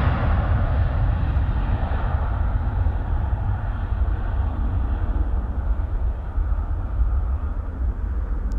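Jet engine noise of a departing Boeing 737-800, its CFM56-7B turbofans at takeoff thrust, a deep rumble that slowly fades and loses its higher hiss as the aircraft climbs away.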